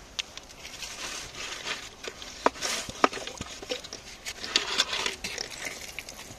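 High-pressure water jet from a hose nozzle hissing into a rock crevice, with grit and small stones clicking and pattering, and a few sharper snaps.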